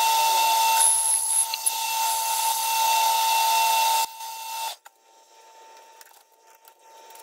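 Metal lathe boring out the centre of a spinning steel disc: a steady high whine over a hiss of cutting, which stops about four seconds in and dies away as the spindle runs down.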